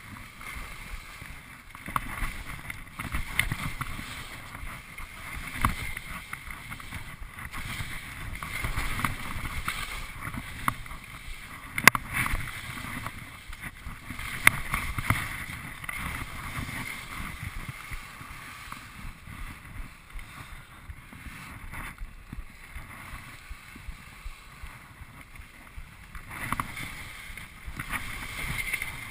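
Skis scraping and carving over snow, picked up by a GoPro in its housing, a continuous rough hiss that swells and eases with the turns, with a muffled wind rush. A sharp knock about 12 seconds in, and another a couple of seconds later.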